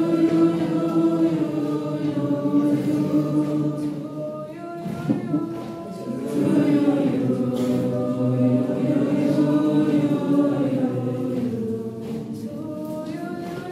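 A youth choir singing, the voices holding long notes, with a brief drop in loudness about four and a half seconds in and again near the end.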